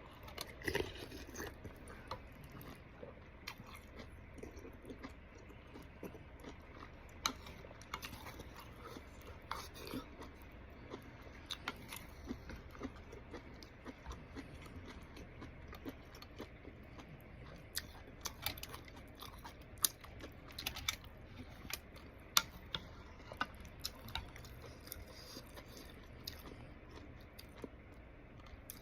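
Close-miked mukbang eating sounds: a person chewing and biting spicy fire noodles and soupy tofu puffs, with many short sharp clicks and smacks scattered throughout, over a steady low hum.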